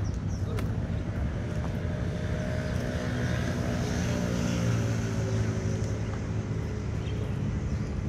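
A passing engine hum that swells to its loudest about halfway through and drops slowly in pitch as it passes, with a few faint clicks.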